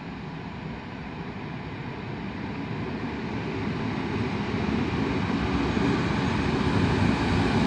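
PKP EN57 electric multiple unit coming along the track, its running noise on the rails growing steadily louder as it draws near.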